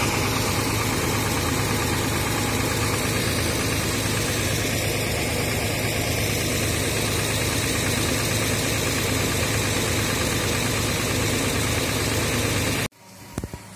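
Diesel engine of a parked intercity bus idling steadily close by, a loud even running noise with a constant low hum. It stops abruptly near the end.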